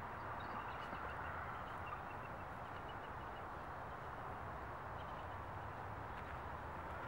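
Outdoor ambience: a steady hiss, with a faint quick run of short high chirps, about five a second, between about one and three seconds in.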